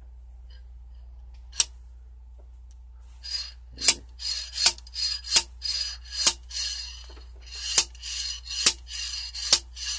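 Lifter removal tool being worked on a stuck hydraulic lifter in a 1995 GMC small-block V8: one sharp metal click, then from about three seconds in a run of metal clacks, roughly one every 0.8 seconds, with scraping between them, as the lifter is drawn up out of its bore.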